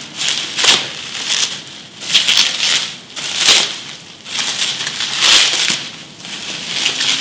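Bubble wrap crinkling and rustling as it is pulled off by hand, in repeated crackly bursts about every second or so.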